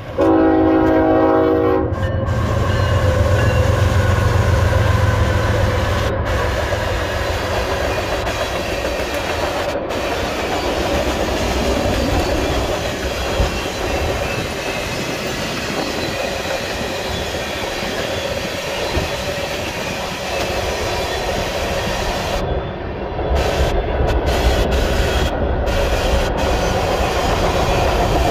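Canadian Pacific freight train passing: the locomotive's horn sounds one blast of about two seconds right at the start, the diesel locomotive rumbles loudly for the first several seconds, and then a long string of tank cars and covered hoppers rolls by with steady steel-wheel rumble and clacking on the rails.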